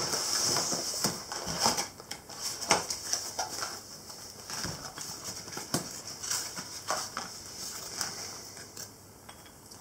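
Cardboard boxes being opened and handled on a wooden table: card rustling and scraping for the first few seconds, then scattered light knocks as an inner box is pulled out and its flaps opened, dying away near the end.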